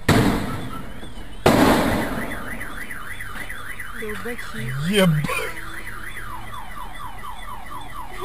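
Two loud bangs about a second and a half apart as the garbage truck's compactor bursts something in its load, setting off a nearby car alarm. The alarm warbles up and down, then switches to rapid falling chirps about six seconds in.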